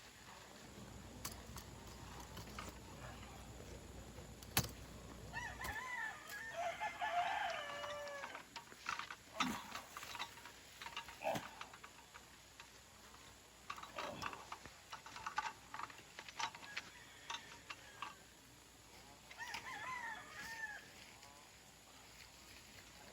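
A rooster crowing twice, about six seconds in and again near the end, with scattered light clicks and knocks in between.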